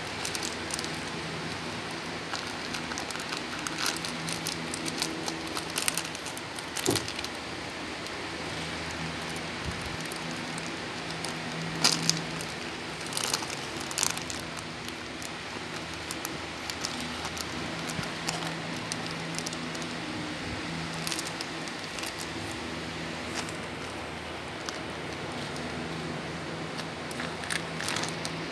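A Shih Tzu chewing and tugging at a plastic snack wrapper, which makes irregular crinkles and sharp crackles, the loudest around the middle, over a steady low hum.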